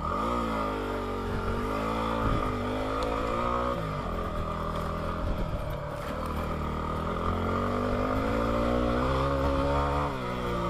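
Yamaha WR250R's single-cylinder four-stroke engine under way on a dirt trail, the revs climbing at the start, dipping about four seconds in, building again and dropping near the end.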